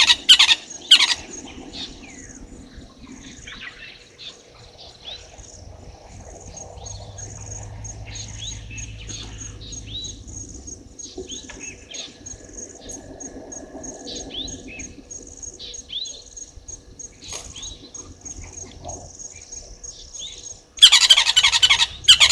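Wild birds calling: scattered short chirps and whistles over a steady high-pitched insect trill, with loud harsh bird calls close to the microphone right at the start and again near the end.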